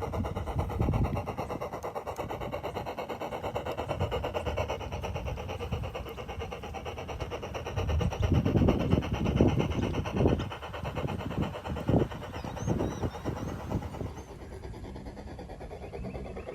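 An engine running with a steady fast pulse, with several louder low surges about halfway through before it settles quieter near the end.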